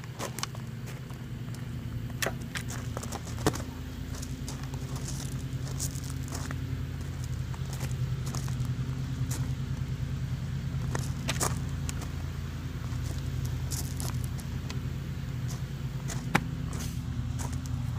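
An engine running steadily, a constant low hum, with sharp clicks and knocks every few seconds from a plastic water bottle being flipped and landing on the ground.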